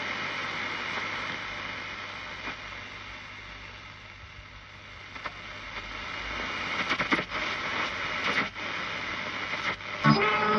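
Shortwave static and hiss from a Volna-K marine radio receiver tuned between stations, broken by scattered crackles, most of them late on. About ten seconds in, a station playing music comes through.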